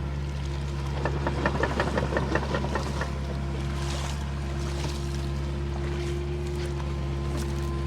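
Caterpillar excavator's diesel engine running steadily under work, with a quick run of clicks or clanks lasting about two seconds near the start.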